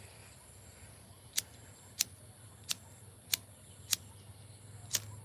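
Pocket lighter struck over and over with the thumb: six sharp clicks, roughly every two-thirds of a second, without the flame catching.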